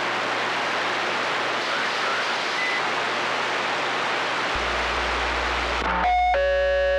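Galaxy CB radio receiver hissing with open-channel static. About six seconds in a strong station keys up: the hiss cuts off suddenly and a steady buzzing tone with many overtones comes through the speaker.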